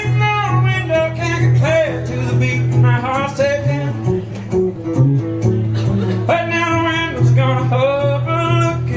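A man singing a country song live while strumming his own acoustic guitar. About four seconds in, the voice stops for a couple of seconds and the guitar plays on alone, then the singing comes back.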